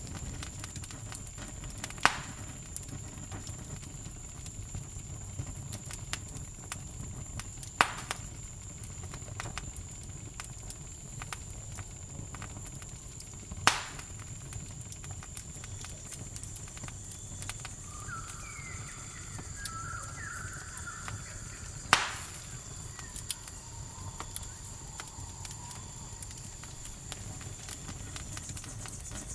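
Campfire crackling with a steady low rumble and constant small snaps, broken by four loud sharp pops from the burning wood. A cricket's continuous high trill runs behind and stops near the end, and a few short chirping calls come in about two-thirds of the way through.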